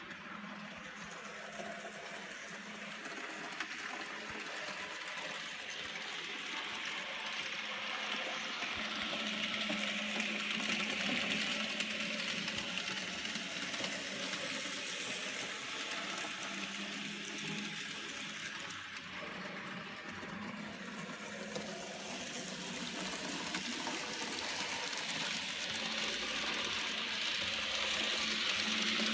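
Small electric motor of an N scale model steam locomotive whirring steadily as it pulls coaches round the track. The whir grows louder and softer as the train runs near and then away.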